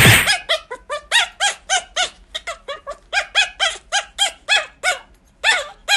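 Pomeranian puppy yelping in a rapid series of high, squeaky yips, each rising and falling in pitch, about three to four a second. There is a short pause near the end.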